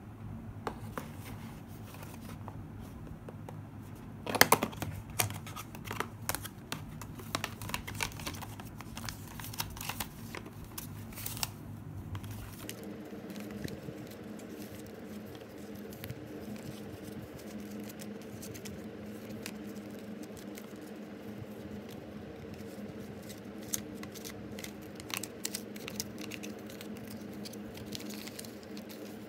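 Paper rustling with scattered light taps and clicks as paper cutouts are handled and shuffled, some against a clear plastic box, over a low steady hum. The sharpest clicks come about four seconds in.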